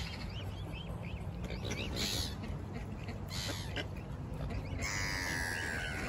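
A flock of mallard ducks and young mute swans calling: short flicking calls at first, then one longer call near the end, falling slightly in pitch.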